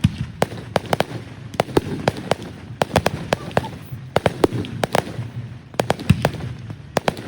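Fireworks going off: a rapid, irregular run of sharp bangs and cracks, several a second.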